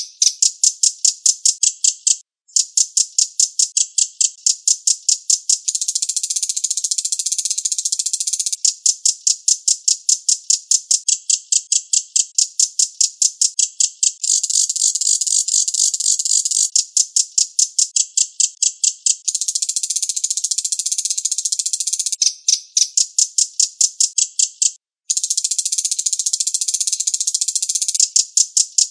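Recorded song of a reno bird used as a training track for cage songbirds: a high, fast chattering trill of about eight sharp notes a second, delivered in runs of a few seconds, with two brief breaks.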